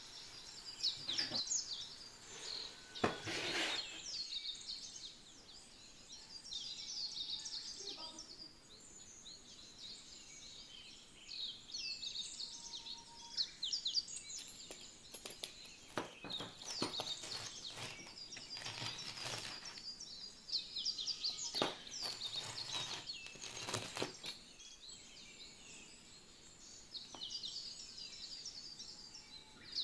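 Small birds chirping and twittering in many quick, high calls, with a few short rushes of noise.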